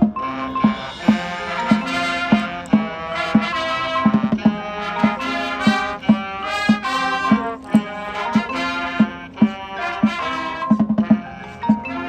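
Marching band playing: brass chords over a steady drum beat of about two strokes a second.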